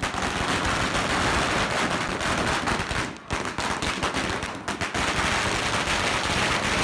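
Firecrackers in a burning Ravan effigy going off in a rapid, continuous string of bangs and crackles, with short breaks about three seconds in and again near five seconds.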